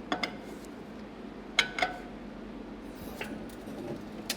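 A few light metallic clinks and taps with a short ring, the two sharpest about a second and a half in, while the engine is being let down a little on its lift.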